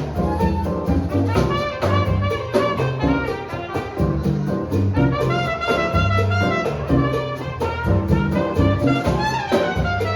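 Latin jazz band playing live: a trumpet melody over bass and a steady percussion beat.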